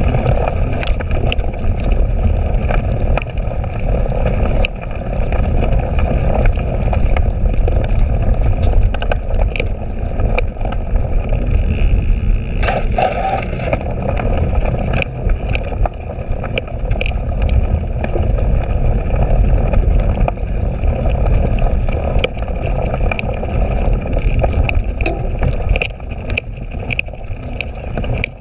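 Cyclocross bike rolling over muddy, bumpy grass at race pace: a heavy low rumble of wind on the bike-mounted microphone and tyres on the ground, with frequent small clicks and rattles from the bike over the rough surface.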